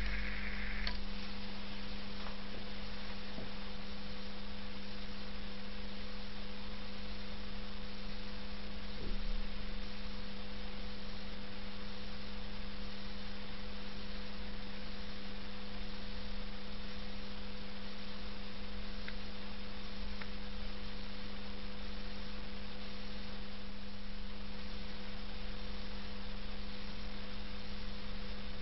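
A steady electrical hum over faint hiss. A butane lighter's gas hisses for the first second, then stops with a click.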